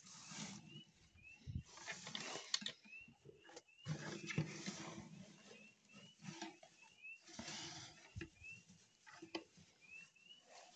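A hand rummaging through the straw of a chicken nest box, with rustling that comes and goes and a few sharp clicks. A chicken makes faint short rising chirps, about two a second.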